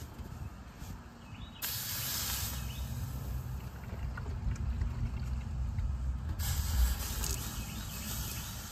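Wet rag pressed onto freshly brazed copper refrigerant-line joints on an AC compressor, the water flashing to steam with a sharp hiss, twice: briefly about a second and a half in, then again from about six and a half seconds on, quenching the hot joints.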